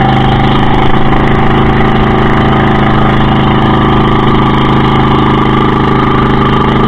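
Motorized outrigger boat's (bangka) engine running steadily while the boat is underway, one unchanging drone.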